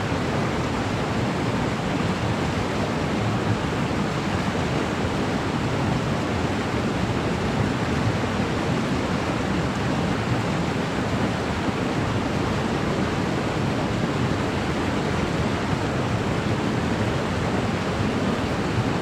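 Waterfall pouring steadily into its plunge pool, an even, unbroken rush of falling water.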